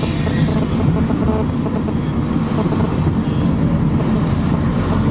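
Mercedes Sprinter van heard from inside its cab while driving: steady engine and road rumble.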